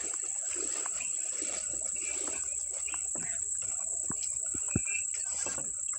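Steady high-pitched insect chorus, with scattered light knocks and one sharper knock about five seconds in.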